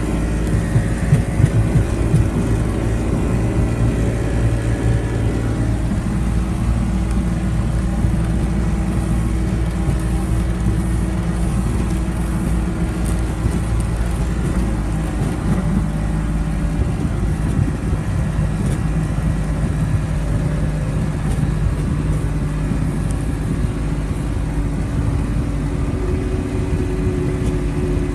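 Steady running of a motor vehicle: a constant engine hum and rumble whose tones drift slowly up and down in pitch.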